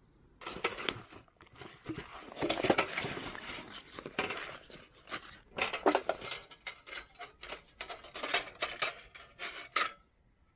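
Metal gear or cookware being handled: a run of clinks, knocks and scraping that stops suddenly near the end.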